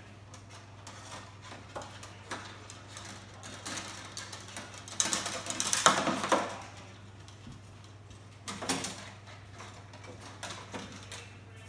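A bolt on a wire rattling and scraping inside an empty plastic diesel fuel tank as the tank is tilted and handled to work the bolt out through the bottom hole. There are scattered clicks, a dense burst of clatter about halfway through, and a shorter burst a few seconds later.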